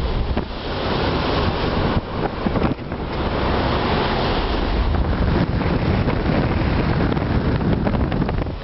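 Storm-force wind buffeting the microphone in loud, gusting rumbles, so strong that speaking is hard.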